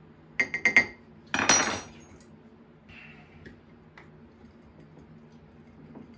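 A metal spoon clinking against a glass measuring cup as cornstarch is stirred into cold water: four quick taps about half a second in, then a louder scraping clatter, and a few light ticks later.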